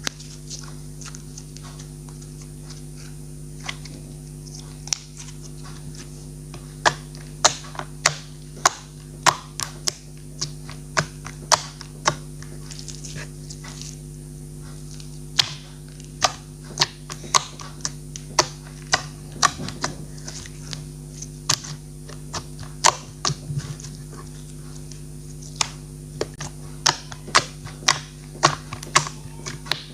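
Clear slime being worked by hand, making sharp sticky pops and clicks in quick irregular runs over a steady low hum.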